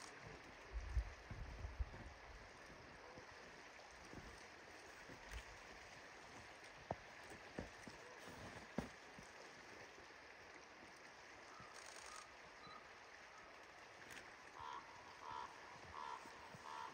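Faint steady flow of the river, with a few low bumps on the microphone about a second in and some light clicks in the middle. Near the end, a run of five short, evenly spaced calls from the ravens at the bison carcass.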